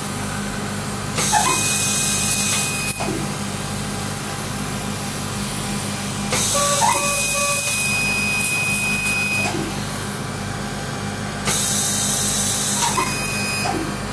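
Surgical laser firing in three spells of two to three seconds each, each with a steady high beep and a hiss, as it cuts the dog's nostril tissue to widen a narrowed nostril. A steady low hum of operating-room equipment runs underneath.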